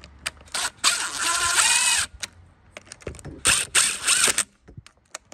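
Cordless driver with a socket extension spinning in two short runs, about a second each, running down the fasteners that hold the air filter housing and carburetor on the trimmer's mounting studs. The motor pitch bends as it runs. Small clicks of handling come between the runs.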